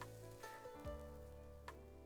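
Quiet background music with a bass line and melody changing notes, with a couple of faint clicks.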